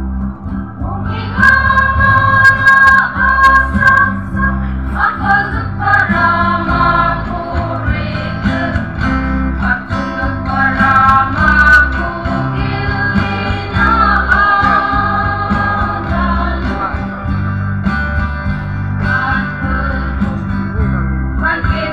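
Choir singing a song in parts, many voices together, over instrumental accompaniment with a low bass line. The voices come in about a second in, after a short instrumental lead-in.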